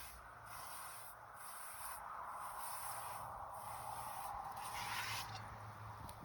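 A rusty cast-iron Dutch oven being washed with soap: a soft, steady hissing noise that rises and falls gently about once a second.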